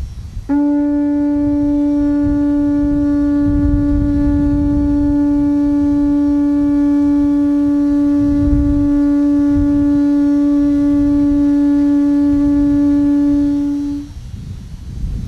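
Conch shell trumpet (Hawaiian pū) blown in one long, steady note. It starts about half a second in and stops abruptly near the end.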